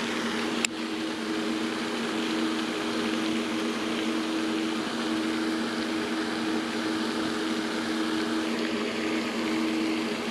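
A steady mechanical hum with a few constant low tones over an even hiss, with one sharp click about half a second in.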